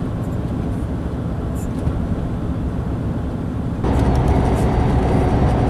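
Steady engine and road rumble inside a moving lorry's cab at motorway speed. About four seconds in, the rumble steps up to a louder, fuller sound.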